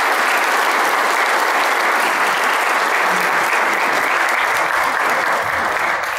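An audience applauding, a steady dense patter of many hands clapping.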